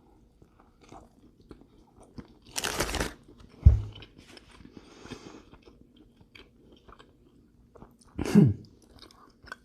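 Close-up chewing of a sliced brisket sandwich: wet mouth clicks and smacking throughout, with a loud breathy burst about two and a half seconds in, a low thump a second later, and a short voiced hum near the end.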